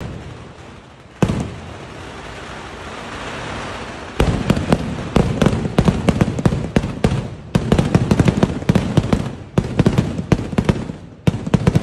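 Daytime aerial fireworks bursting overhead: a single loud bang about a second in, then a stretch of steady noise, then from about four seconds in rapid volleys of bangs, several a second, with brief pauses.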